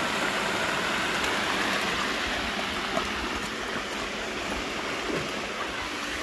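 Shallow creek water rushing steadily over a rock ledge in a small cascade, with a few small splashes as a dog wades through it.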